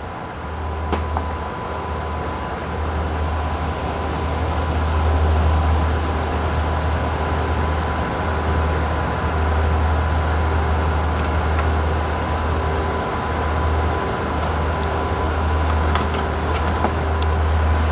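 Steady machine room drone of transmitter cooling fans and air handling, a deep hum that swells and eases, with a thin high whine running through it.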